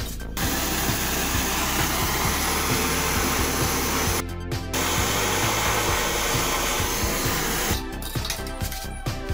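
Handheld butane blowtorch hissing steadily as its flame heats a steel bar. The hiss starts just after the beginning, cuts out for a moment around the middle, and stops about a second and a half before the end, with background music underneath.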